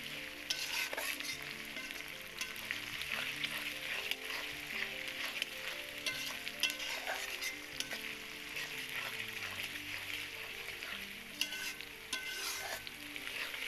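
Sliced onions and whole spices sizzling in hot soybean oil in a metal karai, stirred and scraped with a metal spatula that clicks and scrapes against the pan many times over the steady frying hiss.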